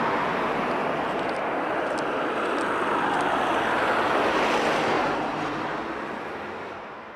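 Steady rushing vehicle noise, which fades out over the last two seconds.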